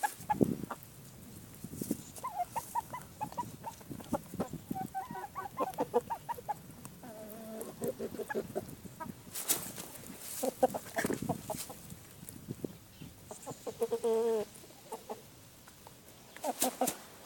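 A flock of Kalimero broiler chickens clucking in short, scattered calls, with one longer drawn-out call near fourteen seconds. A few sharp knocks stand out near the ten- and seventeen-second marks.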